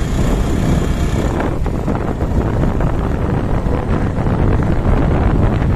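Wind buffeting the microphone on a moving motorcycle, with the engine running underneath as a steady rumble.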